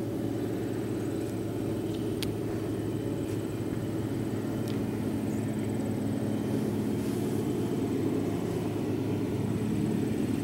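Case tractor engine running steadily under load, pulling a John Deere round baler as it picks up hay and rolls it into a bale, with a faint tick about two seconds in.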